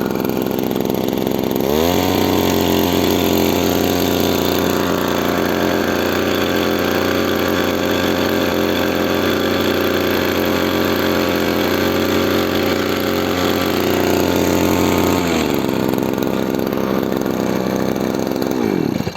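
Small engine of a Taiwan-type spray pump running: it revs up about two seconds in, holds at high speed, then slows back down near the end. The pump builds no pressure because its pressure rod is not moving, which the mechanic puts down to a broken bearing.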